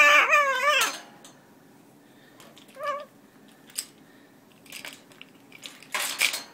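Red-fronted macaw calling: a loud wavering squawk in the first second, a short call about three seconds in, and a harsh, noisy screech near the end, with a few small clicks in between.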